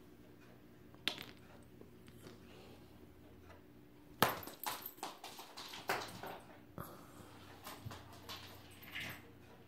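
A cat at play, knocking and rattling things: one sharp knock about a second in, then a flurry of knocks and rattles from about four seconds in that thins out toward the end, over a low steady hum.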